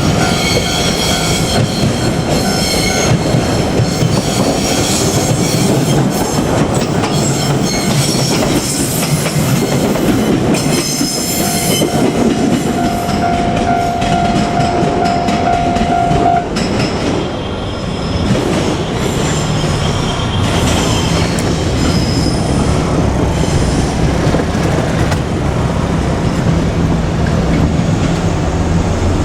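JR Kyushu 817-series electric train running past a level crossing, wheels rumbling and clattering over the rails, with repeated ringing tones from the crossing and a steady high note held for about four seconds a little before the middle.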